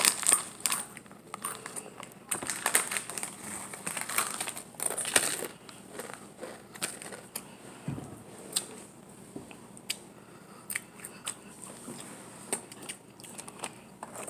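Crinkling of a plastic snack packet and crunchy chewing of a snack, heard as irregular crackles and clicks.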